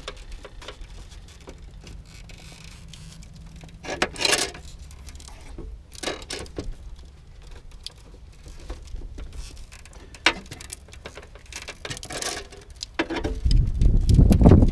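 Scattered small clicks, taps and rustles of hands working with tools and wiring parts, with a louder scrape about four seconds in. A loud low rumble starts near the end.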